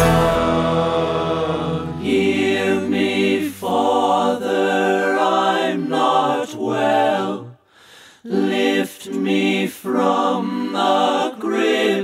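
A held chord from the song fades over the first two seconds. Then voices sing unaccompanied in harmony, in short phrases with brief breaks and one longer pause about eight seconds in.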